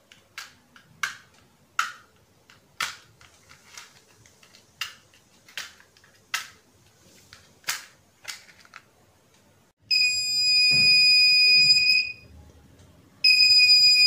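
A string of short scratchy clicks, then an electronic buzzer sounding a steady high tone twice: for about two seconds, then again just over a second later. The buzzer comes on because the photodiode senses the flame of a lit match, which switches the transistor and sets off the alarm.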